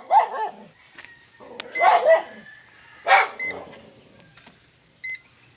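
A dog barking in three short bursts, about a second apart, with a short electronic beep near the end.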